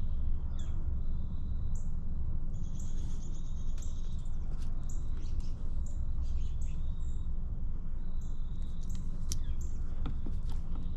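Birds chirping in short high calls over a steady low rumble, with a few light clicks.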